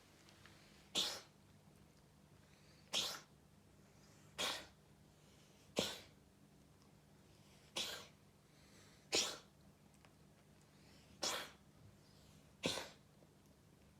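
A cat sneezing over and over: eight short, sudden sneezes spaced about one and a half to two seconds apart.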